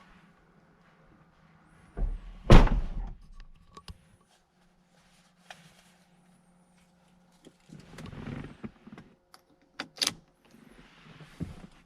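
Ferrari 458 Spider's door shutting with one heavy thunk about two and a half seconds in, followed by quiet with rustling and a few sharp clicks near the end.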